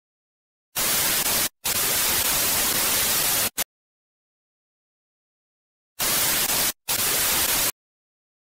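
TV-static hiss sound effect, as used for a glitch transition, in hard-edged bursts. The first starts about a second in and runs nearly three seconds with a brief break. A second burst starts about six seconds in and lasts under two seconds. Between them is dead silence.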